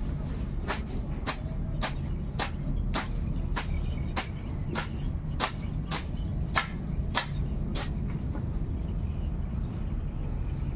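Sharp taps or clicks repeating at an even pace, a little under two a second, thinning out over the last few seconds, over a steady low rumble.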